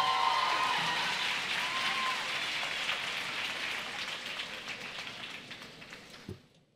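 Audience applauding after a piece ends, with a few faint cheers at the start; the clapping fades away over about six seconds. A single low thump comes near the end.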